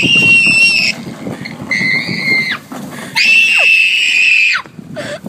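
A small child screaming in anger, three long high-pitched shrieks with the third the longest, over the low rumble of a shopping cart's wheels rolling on asphalt.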